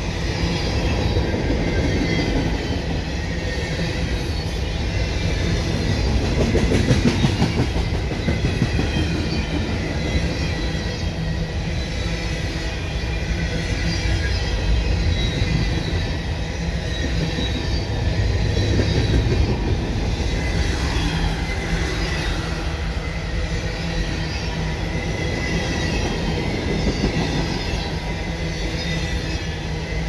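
CSX freight train of containers on flatcars rolling past close by: a steady rumble and clatter of wheels on the rails, with a thin high wheel squeal, over wind noise on the microphone.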